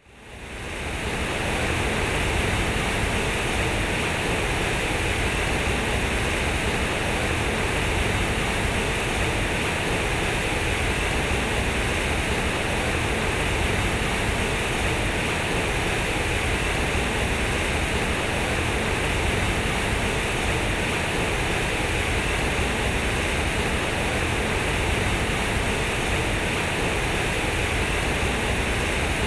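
Water pouring from a concrete fountain's square spouts and crashing into its pool: a steady rushing splash that fades in over the first second or so.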